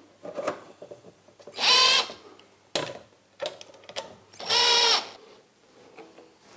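Cordless drill-driver running in two short bursts of about half a second each, at steady speed, fastening a wooden bracket block to the wall, with a few knocks between the bursts.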